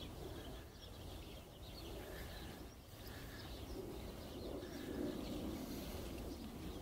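Faint outdoor ambience: scattered bird calls and chirps over a low, steady rumble.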